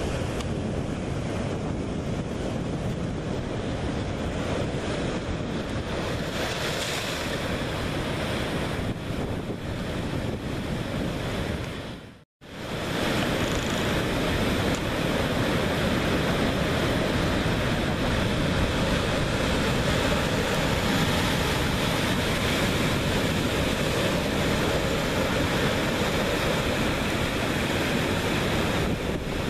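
Surf breaking over a rocky reef and washing through the rocks as foam, with wind buffeting the microphone. The sound cuts out for a moment about twelve seconds in, then carries on a little louder.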